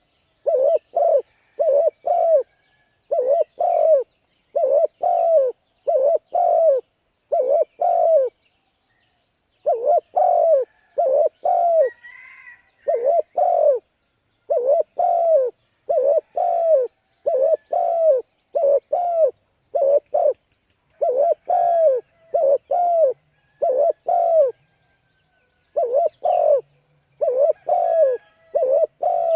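Spotted dove cooing over and over in the rapid, urging 'gáy thúc' style: short, loud coos in clusters of three or four, with brief pauses between the clusters.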